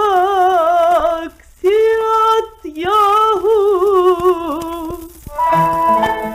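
Female voice singing a slow, ornamented Turkish classical line with wide vibrato, with two short pauses for breath, from an old gramophone record with a narrow, muffled sound and faint surface clicks. Past five seconds the voice stops and plucked string instruments take over.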